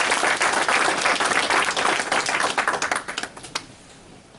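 Audience applause: many people clapping, thinning to a few scattered claps and dying away about three and a half seconds in.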